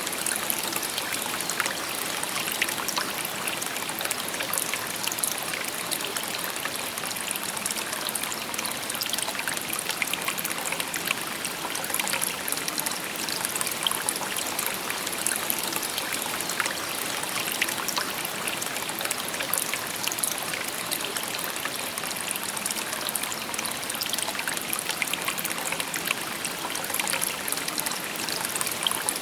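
A shallow river babbling steadily, water rushing and trickling over stones with a fine, continuous splashing hiss.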